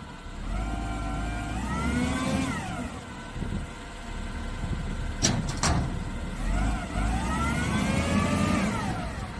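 Heavy machine's engine revving up and dropping back twice over a low rumble, with two sharp knocks about five seconds in.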